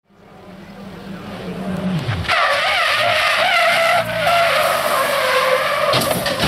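Opel Astra rally car on tarmac: the engine note drops about two seconds in, then the tyres squeal loudly and waveringly for about four seconds as the car slides.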